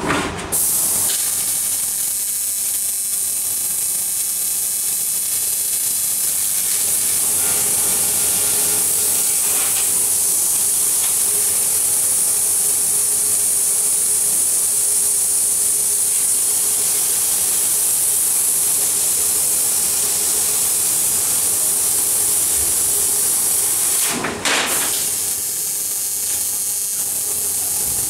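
Fiber laser cutting machine cutting 16 mm carbon steel plate: a steady, loud high hiss of assist gas jetting from the cutting head's nozzle. It breaks off briefly about three-quarters of the way through, then starts again.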